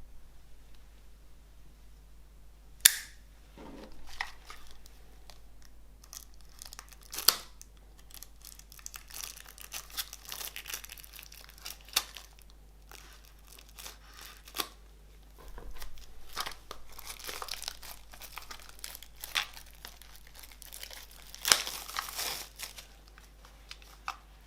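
Plastic wrapping being torn and crinkled off a music cassette. Stretches of crackling are broken by several sharp snaps.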